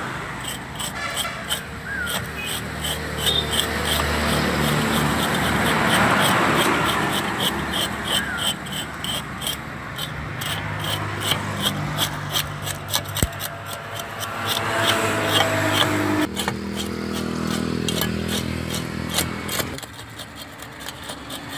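Fish scales being scraped off a large fish with a serrated scaling blade, in quick regular strokes at about three a second. Road traffic hums underneath.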